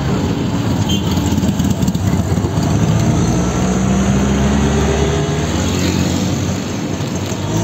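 Auto-rickshaw engine running steadily as it drives along a road, heard from inside the open cab with road and traffic noise.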